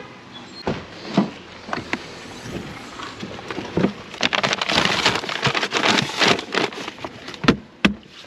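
Hard plastic camping cooler being handled: a few knocks as the lid is lifted, a dense stretch of rustling and rattling as things are moved around inside, then two sharp knocks as the lid is shut near the end.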